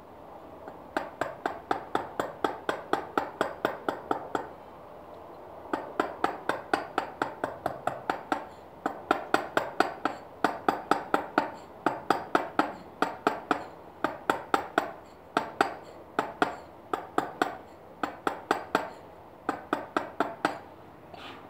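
A dummy mallet taps a small chisel cutting into limestone, in quick runs of light blows at about five a second, with short pauses between the runs.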